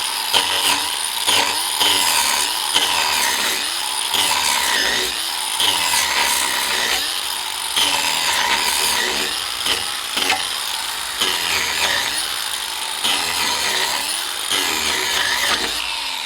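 DeWalt 18V XR cordless angle grinder with a wood-carving disc running under load and cutting into a log, stripping bark and wood in repeated passes about once a second over a steady motor whine.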